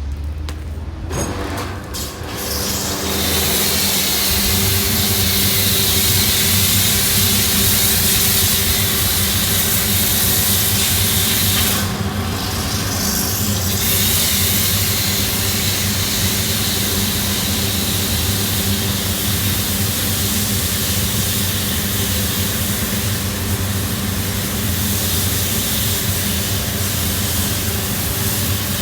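A motor-driven cleaning machine running steadily with a strong hiss over a steady hum. It builds up over the first few seconds, and the upper hiss cuts out briefly about twelve seconds in.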